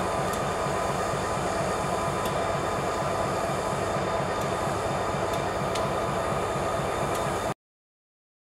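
Canadian Pacific EMD SD40-2 diesel locomotives idling at a standstill: a steady engine rumble with an even low pulse and a thin whine. The sound cuts off abruptly near the end.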